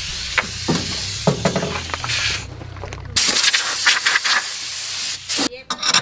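Compressed-air blow gun blasting dust out of a tractor's air-cleaner parts: a long steady hiss of air, a short pause, then a louder blast that stops shortly before the end, followed by a few light knocks. A low hum runs underneath during the first half.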